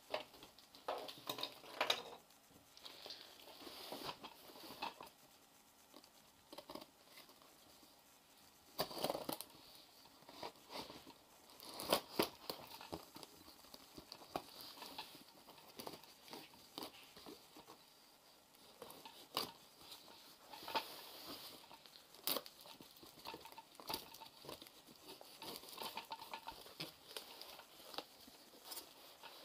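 A cardboard shipping box being opened by hand: a knife slitting the packing tape, the cardboard scraping and tearing, and the flaps rustling and knocking as they are pulled open. The sounds come as irregular scratches and sharp knocks, with no steady rhythm.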